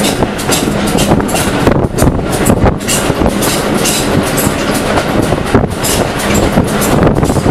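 Train running along the track, heard from an open carriage window: a steady rumble and rattle of wheels on rails with frequent irregular clatter and knocks.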